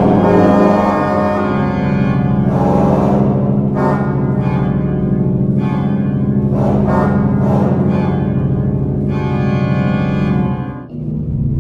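Pipe organ playing a held low chord in the bass while higher chords swell in and out above it several times. Just before the end the sound briefly drops away and a new low chord begins.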